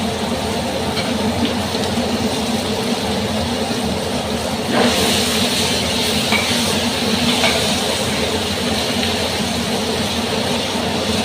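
Stir-fry sizzling in a hot pan over a steady low hum, the hiss of the sizzle jumping louder about five seconds in.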